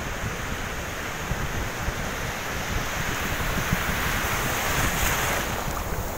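Sea surf washing and foaming around a wader, with wind buffeting the phone's microphone. The rush of water swells about four seconds in as a wave surges past, then drops off suddenly shortly before the end.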